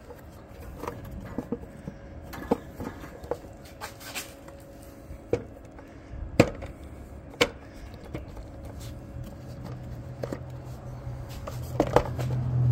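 Scattered clicks and knocks of hard plastic as the Prius's air box housing and surrounding engine-bay parts are handled and fitted by hand. The sharpest knocks come about six and seven seconds in, with another cluster near the end, and a low rumble builds in the last few seconds.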